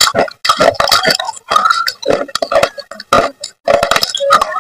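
Pieces of baked clay pot being bitten and chewed: an irregular run of sharp, crackling crunches.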